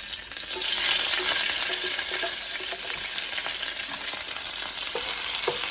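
Chopped onions, garlic and hot pepper sizzling in hot oil in a pot as they are stirred, with small clicks of the utensil against the pot. The sizzle swells about a second in.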